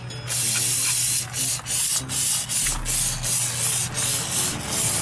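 Aerosol brake cleaner hissing out of the can's straw in a quick run of short bursts with brief breaks, as it is sprayed over a drum brake's backing plate to wash off grime.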